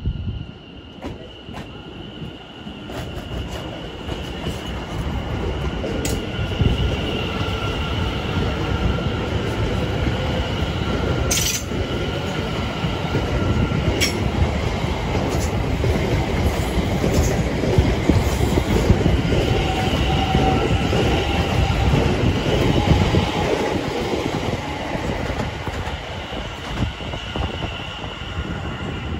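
A Greater Anglia Class 720 Aventra electric multiple unit running past close by. It gives a steady rumble of wheels on rails with a high, steady whine over it, and a couple of sharp clicks from the wheels over rail joints near the middle. The sound builds over the first few seconds and eases off near the end.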